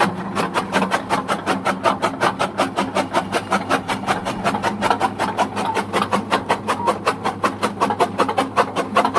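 Chaff cutter running, its blades chopping green fodder in a steady rhythm of about four cuts a second over a low machine hum.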